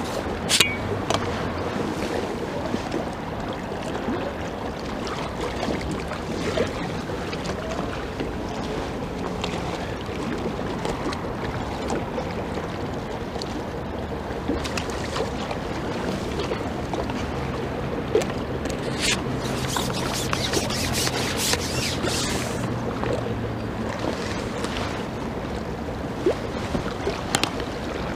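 Steady rush of strong wind on the microphone over river water, with a few sharp clicks and taps, the loudest about half a second in.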